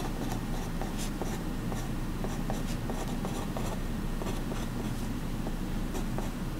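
Mechanical pencil writing on paper: short graphite scratches and taps as figures are written out, over a steady low hum.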